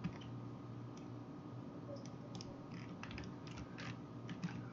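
Scattered clicks of a computer mouse and keyboard, a dozen or so irregular taps, over a faint steady electrical hum.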